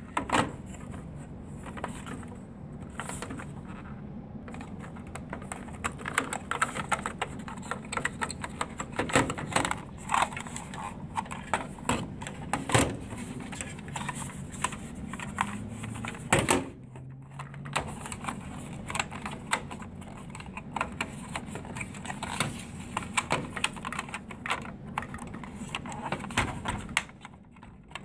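Irregular plastic clicks, knocks and rattles from hands handling a black plastic module and its ribbon cable, working it free of a large-format printer's plastic housing.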